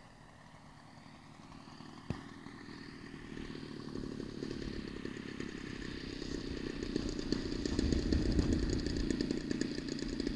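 A small engine running with a fast, rattling beat, growing steadily louder from faint to loud. There is a single sharp click about two seconds in.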